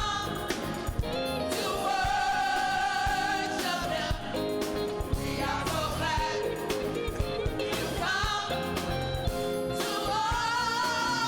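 Gospel music: voices singing long, wavering held notes over a band with drums and bass.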